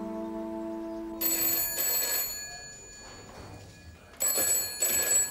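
Desk telephone ringing in two double rings, the British ring cadence, after a passage of music ends about a second in.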